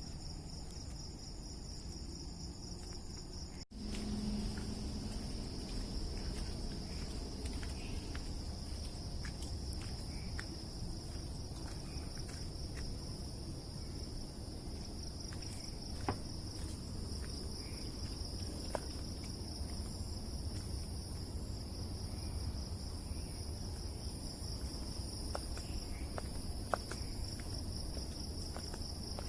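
Night insects chorusing: a steady, high pulsing trill from crickets or similar insects, with a few faint clicks and a low rumble underneath.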